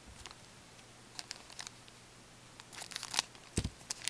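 2012-13 O-Pee-Chee hockey cards being flipped and slid against each other in gloved hands, giving light scattered flicks and rustles that grow busier in the second half. There is a dull thump about three and a half seconds in.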